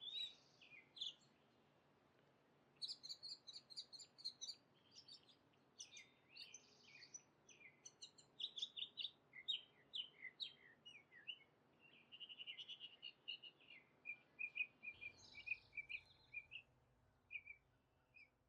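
Several birds calling: a busy run of short, high chirps and whistles, with a fast trill about twelve seconds in.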